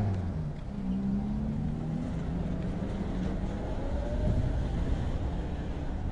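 Low, steady street rumble of vehicles, with a faint engine hum and a faint whine rising in pitch about four seconds in.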